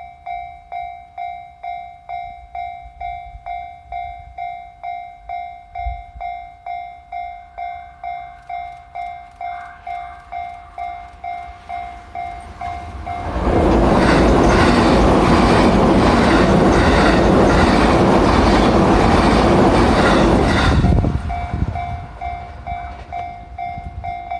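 Level-crossing warning bell ringing, a steady repeated electronic ding about twice a second. About thirteen seconds in, a train passes over the crossing, drowning the bell for about eight seconds, then the bell is heard again.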